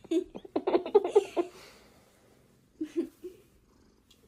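Domestic cat purring close up, in rapid low pulses: a longer run at the start and a short run about three seconds in.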